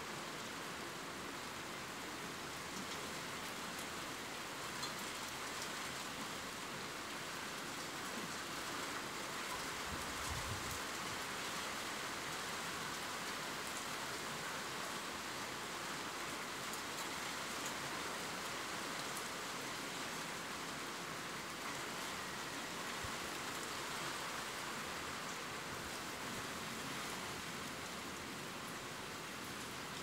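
Steady rain falling, an even, unbroken hiss of drops, with a short low thump about a third of the way through.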